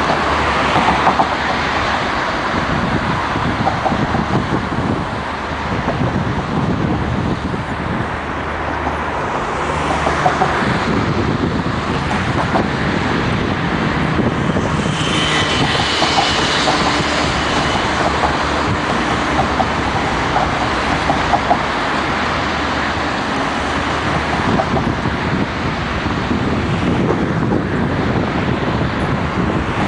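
Steady, loud road-traffic noise, with a brief high whine about fifteen seconds in.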